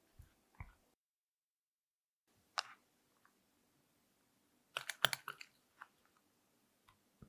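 Sparse, quiet kitchen sounds: a couple of soft low thuds from a spatula stirring red beans into mousse batter, then a metal spoon clicking and scraping against a small glass bowl. The loudest is a quick cluster of clicks about five seconds in, as matcha powder is mixed into cream.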